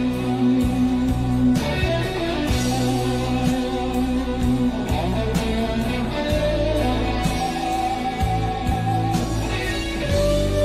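Rock band music: an electric guitar solo of long held notes over steady bass and drums.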